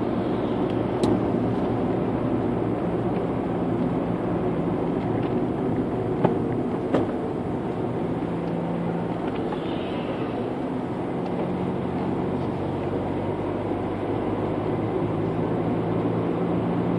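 Steady engine and road noise inside the cabin of a moving vehicle, with two small knocks about six and seven seconds in.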